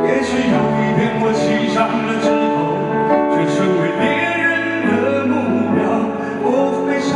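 A man singing into a handheld microphone over backing music, his voice holding long, wavering notes.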